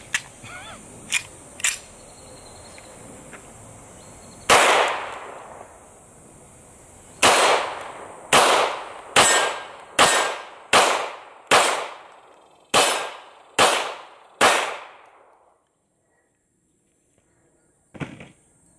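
A Hi-Point .40 S&W pistol, just run over by a truck, still firing: one shot, then after a pause nine more at about one a second, each with a short ringing tail. Two light clicks come before the first shot, and a short clack near the end.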